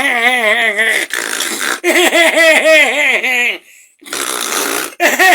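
A person laughing hard in long runs of rapid, pitched ha-ha pulses, about four or five a second, breaking off briefly about three and a half seconds in with a breathy gasp before the laughter starts again.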